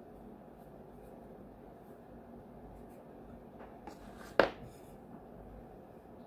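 Hands mixing flour and water into bread dough in a glass bowl: faint soft scuffing and rubbing. A single sharp knock against the glass bowl comes about four seconds in, just after a smaller tap.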